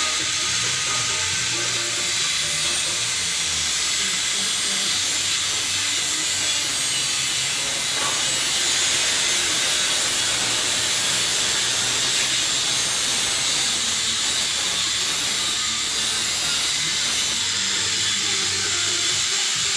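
A steady, even hiss with no distinct knocks or rhythm.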